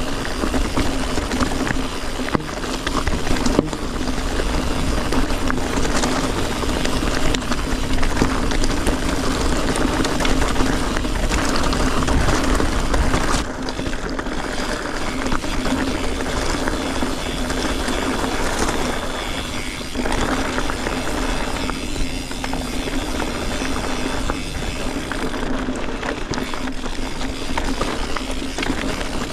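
Full-suspension mountain bike, a Canyon Neuron on Maxxis Forekaster 29x2.20 tyres, ridden over rough, rocky ground: continuous tyre noise with rattles and knocks from the bike, and wind rumble on the action camera's microphone.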